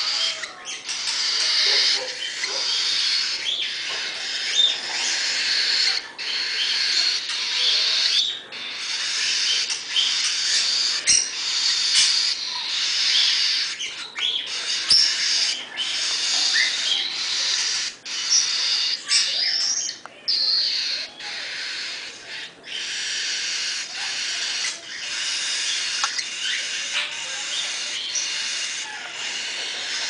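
Baby cockatiel chicks giving harsh, high-pitched food-begging calls, nearly continuous with brief breaks.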